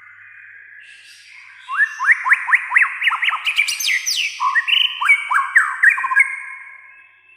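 White-rumped shama singing: a faint drawn-out whistle, then a loud run of quick rising notes, high falling sweeps and whistled phrases that trail off near the end.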